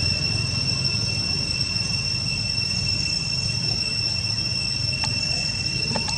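Steady, high-pitched insect drone with an unchanging whine, over a low outdoor rumble; a faint click about five seconds in.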